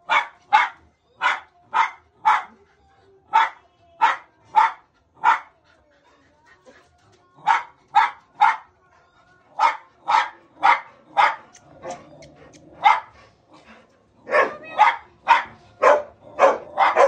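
Dogs barking up at a cat perched out of reach: short, sharp barks about two a second, in bouts with a pause about a third of the way through, coming faster and overlapping near the end.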